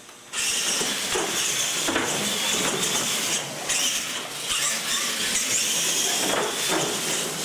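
Two radio-controlled monster trucks launching off the line and racing side by side on a concrete floor: a sudden loud start about a third of a second in, then a high motor whine over tyre noise.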